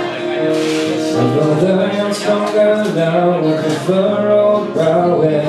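A man singing with his own strummed acoustic guitar: a sung melody over repeated chords.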